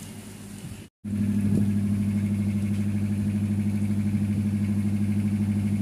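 A boat's engine running steadily: a loud, low drone with a fast, even pulse. It comes in abruptly about a second in, after a short dropout, and replaces quieter background noise.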